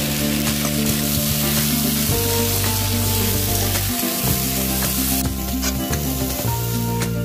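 Jackfruit and potato pieces sizzling as they fry in oil in a pan while being stirred, a steady frying hiss.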